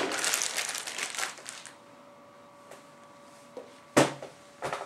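Plastic wrapping crinkling as it is handled for the first second or two, then two sharp knocks about four seconds in.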